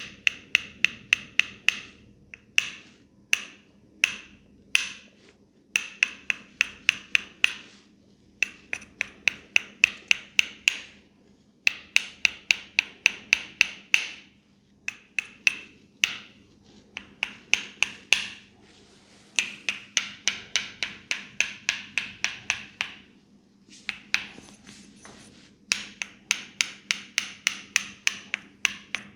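Hands striking a head in a percussive massage, making sharp slapping taps. The taps come about five a second in bursts of one to three seconds, with short pauses between them.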